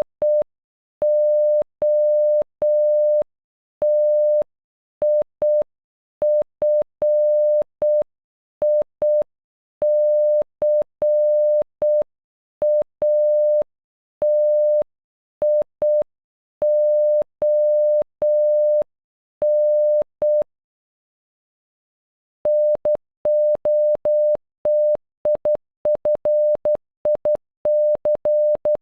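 Morse code beeps: one steady electronic tone keyed on and off in dots and dashes spelling "NOTIFICATION" (-. --- - .. ..-. .. -.-. .- - .. --- -.), slowly at half speed. After a pause of about two seconds near the middle, the word starts again at normal speed with much shorter, quicker beeps.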